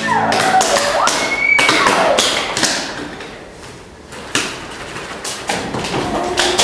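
A run of irregular taps and knocks, with a few short sliding cries in the first two seconds.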